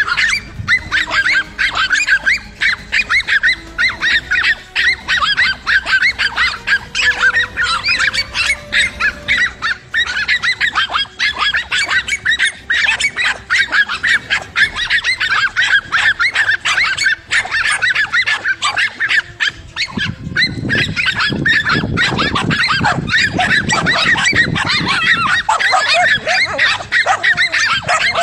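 A continuous din of many rapid, overlapping high animal calls, several a second, with a deeper rumble joining in about two-thirds of the way through.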